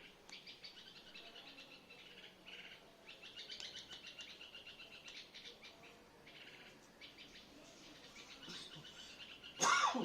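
Small birds chirping continuously in quick runs of high chirps. Near the end, one short, loud sound sweeps down in pitch from high to low.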